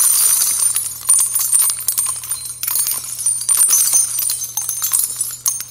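Jingling and tinkling like small shaken bells, a dense run of quick clinks, over a steady low hum.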